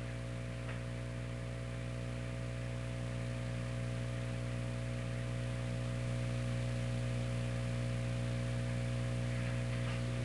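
Steady electrical mains hum with hiss from CB radio gear, the level creeping up slightly a few seconds in.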